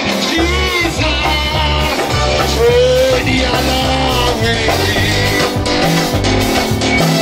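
Live band playing rock-style music: a steady bass line and drums, electric guitar and a singing voice.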